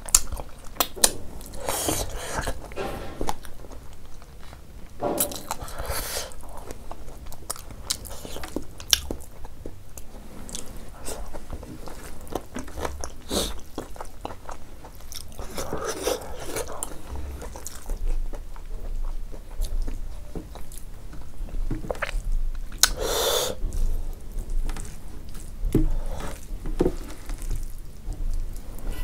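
Chewing of rice mixed with lentil dal, chicken and greens eaten by hand, with soft squishing as fingers mix the rice on the plate.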